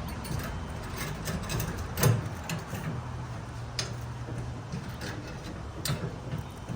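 Hand work with steel tie wire and nails on a wheelbarrow frame: scattered small metallic clicks and taps, with a louder knock about two seconds in, over a low steady hum.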